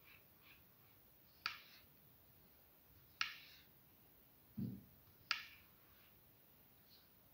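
A spoon stirring thick batter in a bowl, knocking sharply against the bowl three times, about a second and a half apart, with one dull low thump between the last two knocks.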